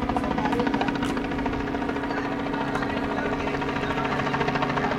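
Robinson R44 Raven helicopter flying, its two-bladed rotor and piston engine making a steady drone with a fast, even pulsing.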